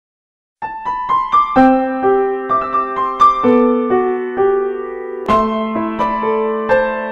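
Background music: piano playing a slow melody of struck, held notes, starting about half a second in.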